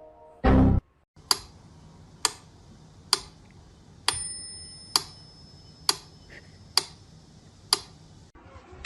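A short loud thump, then steady clock-like ticking, eight sharp ticks just under a second apart. A thin high ringing tone sounds briefly partway through.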